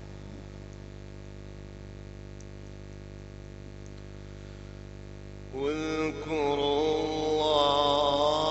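Steady electrical mains hum from the sound system, then about five and a half seconds in a man's voice enters with a long, wavering, drawn-out melodic line of Quran recitation (qirat) over the microphone, getting louder toward the end.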